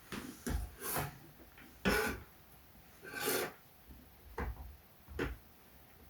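Short scraping and rubbing sounds of hands working on a laptop's internal parts, about seven strokes in six seconds, with a longer scrape about three seconds in.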